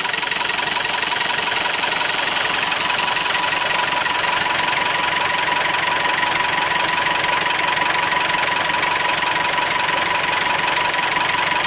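Massey Ferguson tractor engine running steadily, with a thin steady whine over the engine note.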